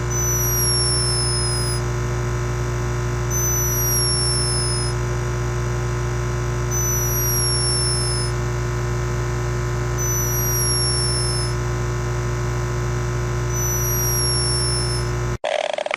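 Steady electronic drone made of many fixed tones, with a short high falling chirp repeating about every three and a half seconds, five times. It cuts off abruptly near the end.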